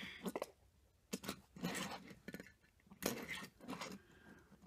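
Die-cast metal toy cars being turned by hand and set down on a wooden floor: a handful of short clicks and scrapes, spread through the few seconds.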